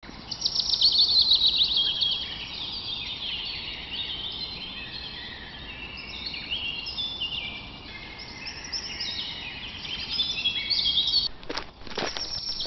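A chorus of many birds chirping, with rapid, overlapping downward-sliding high chirps, loudest in the first couple of seconds. A couple of sharp hits come near the end.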